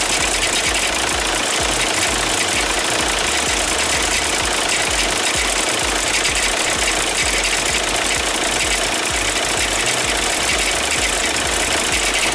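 2006 VW Jetta's 1.9 TDI diesel idling in park with a steady, rapid rattle from its failed dual mass flywheel between the engine and the DSG transmission.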